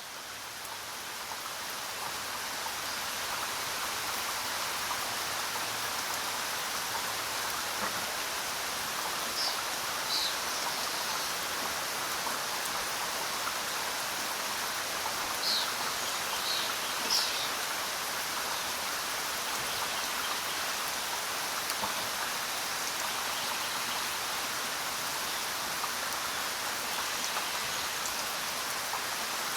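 Steady rainfall, fading up over the first few seconds, with a few short, high bird chirps about a third and about halfway through.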